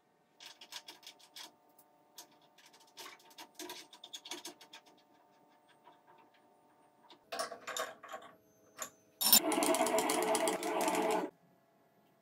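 Light metal clicks and scrapes of tooling being handled and fitted on a bench milling machine, then a loud, steady mechanical whirr for about two seconds near the end that cuts off suddenly.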